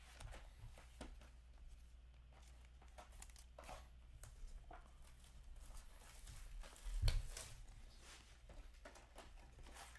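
Hockey trading cards being leafed through and slid by hand: soft scattered flicks and rustles, with one dull thump about seven seconds in.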